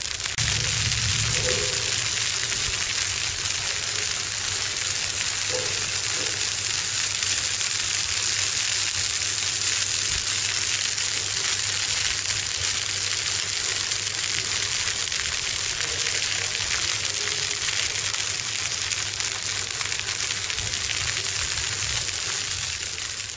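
Fish steaks sizzling on a hot flat-top griddle: a steady, even frying hiss.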